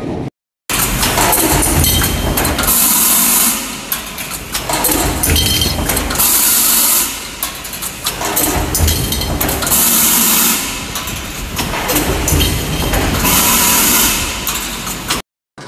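Sheet-metal stamping press line running, with the clatter and knocks of the dies and transfer working. A loud hiss of air comes back about every three and a half seconds and lasts about a second each time.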